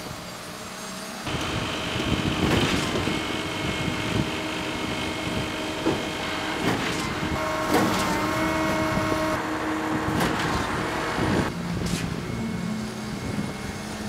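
Heavy diesel truck engines running steadily with a high whine and irregular knocks and clanks. The sound changes abruptly about a second in and again near the end.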